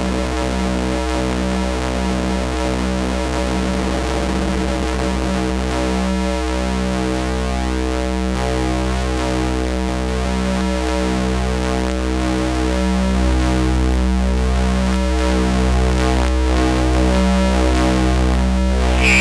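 Astrogorus synthesizer playing a rhythmic drone: a steady low hum under stacked tones pulsing on and off about once a second.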